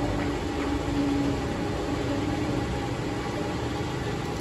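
Steady mechanical hum and noise, with a faint low steady tone in the first half.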